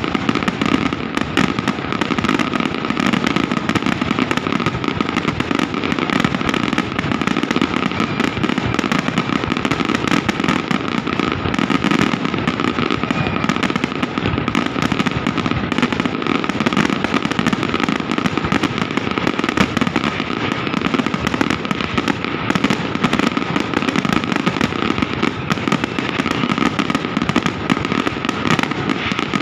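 Fireworks display going off as a dense, unbroken barrage of bangs and crackles, with a steady high tone running underneath.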